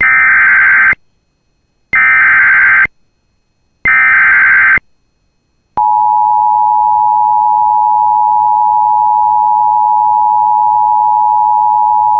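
Emergency Alert System header: three roughly one-second bursts of warbling SAME data tones, about two seconds apart, then a steady attention tone starting about six seconds in. This signals the start of a severe thunderstorm warning.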